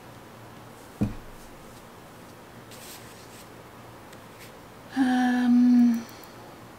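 A short thump on the desk about a second in, then a woman humming one held note for about a second.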